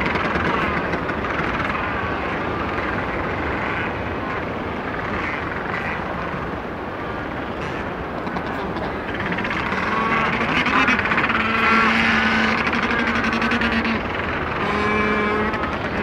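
Macaroni penguin colony calling over a steady din with distant sea, and a close individual's drawn-out pitched calls rising out of it about ten seconds in and again near the end.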